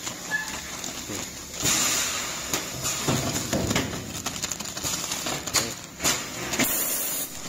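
Plastic packaging film of a sealed diaper bag crinkling and rustling in irregular bursts as it is handled.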